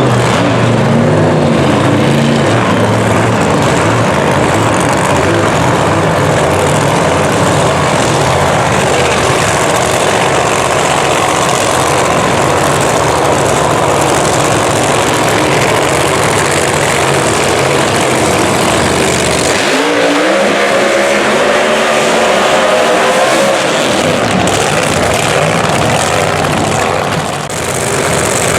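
A 3,500 HP supercharged (blown) Hemi drag-racing engine running very loud just after firing up. About 20 seconds in the deep rumble thins out and the pitch climbs as the engine is revved.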